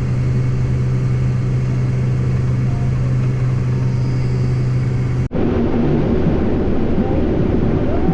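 Heavy farm machinery engine running steadily with a strong low hum. About five seconds in the sound cuts abruptly to a different, rougher running machine.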